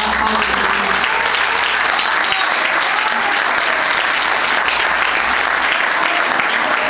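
Congregation applauding, steady clapping.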